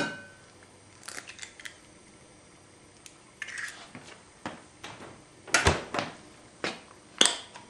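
An egg is struck on the rim of a mixing bowl, a sharp crack with a short ring from the bowl. It is followed by scattered light clicks and knocks of kitchen things being handled, the loudest a thump about five and a half seconds in.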